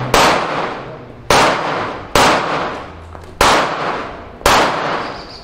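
Five pistol shots about a second apart, each one fading out over roughly a second after the crack.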